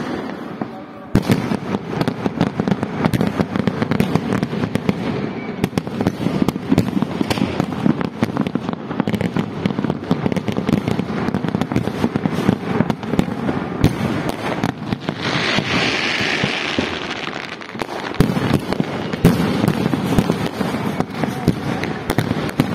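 Fireworks display going off without pause: a dense run of bangs and crackling from shells bursting overhead, with a spell of hissing about two-thirds of the way through.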